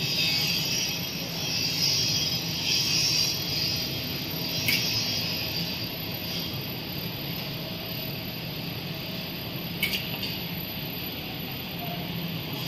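PE protective film coating machine running: a steady mechanical hum under a hiss, with two short sharp clicks about five and ten seconds in.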